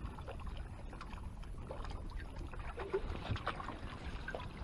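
Water sloshing and splashing in a boat's livewell as a hand reaches in and lifts out a bass, with scattered small splashes and drips over a low steady rumble.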